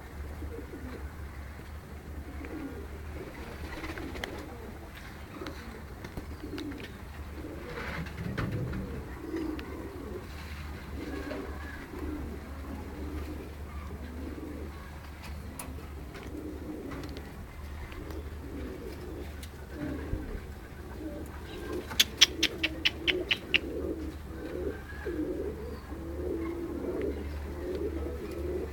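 Domestic pigeons cooing continuously, several birds' low rolling coos overlapping, over a steady low hum. A little past two-thirds of the way in, a quick run of about eight sharp clicks or taps sounds within under two seconds.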